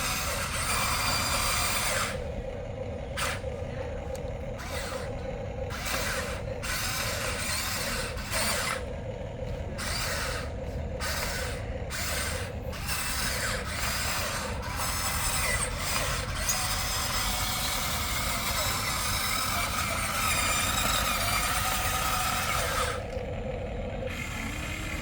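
Motors and gears of a Huina remote-control excavator whirring and grinding. The sound stops and starts many times in the first half, then runs more steadily, with one short break near the end.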